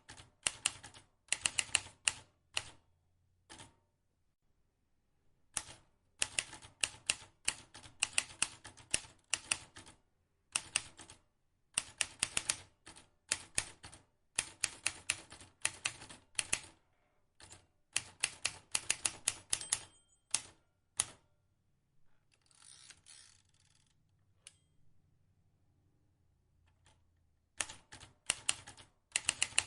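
Vintage manual typewriter being typed on: runs of sharp key clicks in quick bursts, broken by short pauses. A longer, softer rasping sound comes about two-thirds of the way in.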